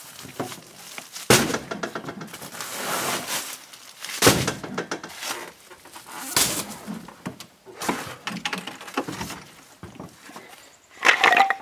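A string of sharp knocks and thunks with scraping between them: plastic five-gallon buckets and gear being shifted and lifted in a pickup truck bed. A brief higher-pitched sound comes near the end.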